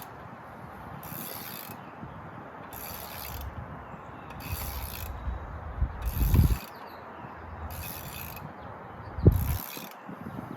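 Ratchet wrench clicking in short spells about every second and a half as it spins the 34 mm front axle nut off a Ram 2500's wheel hub, with two dull knocks in the second half, the louder one near the end.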